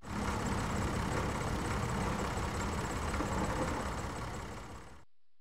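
Farm tractor engine running steadily as it pulls an implement across a field, fading away about four to five seconds in.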